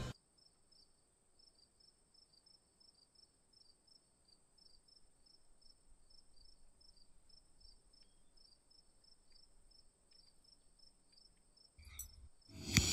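Faint night crickets chirping in a steady rhythm, about three chirps a second, over a thin continuous high insect trill. A brief soft rustle comes near the end.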